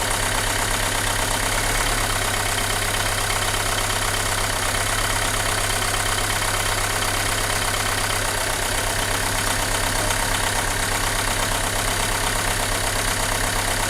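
Renault Mégane II engine idling steadily with a shake and no pulling power, the sign of a misfiring cylinder that is being traced by disconnecting one cylinder at a time.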